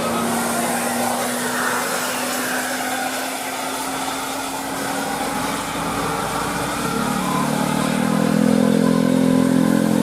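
Bus traffic on a road in heavy rain: an engine's steady hum under an even hiss of rain and wet road noise, swelling louder with several steady tones about seven seconds in.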